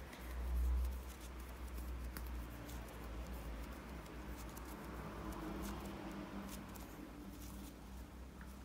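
Faint, soft handling sounds of hands shaping bread dough around red bean paste and a metal spatula-knife against the dough, with a few faint clicks over a low rumble and a soft bump about a second in.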